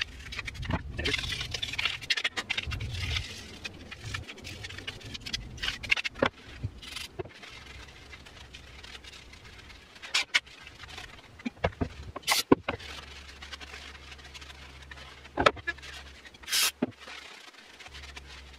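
Stiff nylon brush scrubbing grime out of the plastic housing of a cordless reciprocating saw for the first few seconds. This is followed by scattered sharp clicks and taps as small plastic parts are handled.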